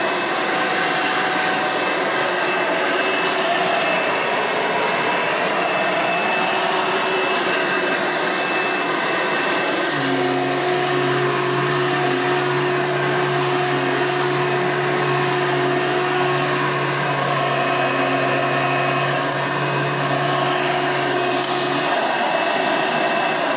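Hoover Elite 1 upright vacuum cleaner running steadily at full power. About halfway through, a low steady hum joins the motor noise, and it stops near the end.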